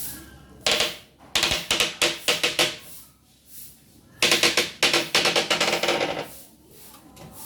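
Packaging of a boxed TV being handled, making crackling, rustling bursts of rapid clicks: a short one, then two longer runs with pauses between.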